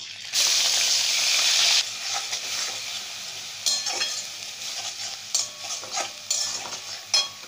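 Coarse onion paste dropped into hot mustard oil in a kadai: a loud burst of sizzling for about a second and a half, then a quieter steady sizzle as a spatula stirs the onions and scrapes against the pan with a few sharp knocks.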